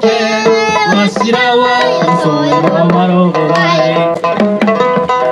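Live Okinawan-style band music: a homemade sanshin strummed along with a male singing voice and regular hand-drum beats.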